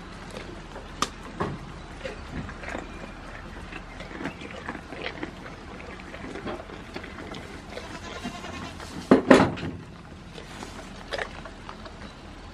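A goat biting into and chewing a fresh cucumber: irregular wet crunches and clicks, with one louder double burst about nine seconds in.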